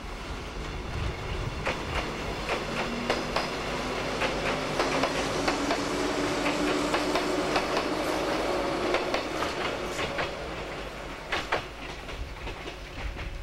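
Cream-and-green electric multiple-unit train passing and pulling away, its wheels clicking over the rail joints over a steady rumble, with a faint whine rising slowly in pitch as it gathers speed. The sound peaks as the cars pass and fades after about ten seconds, a few sharper wheel clacks near the end.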